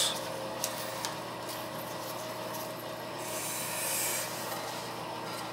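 A 1.6-gallon toilet flushing as a test of its newly fitted flapper, with water rushing steadily through the bowl and tank.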